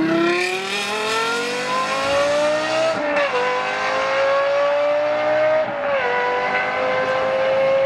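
Lexus LFA's 4.8-litre V10 accelerating hard with a high, rising pitch. Two quick upshifts, about three and six seconds in, each drop the pitch before it climbs again.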